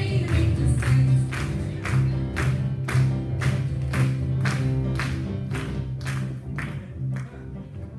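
Live church band music, instrumental: a steady percussion beat of about two hits a second over a strong bass line and keyboard, thinning out slightly near the end.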